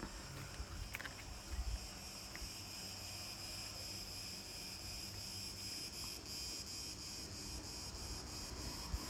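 Outdoor insect chorus: a steady high-pitched chirring drone with a faint regular pulsing. A brief low thump about one and a half seconds in.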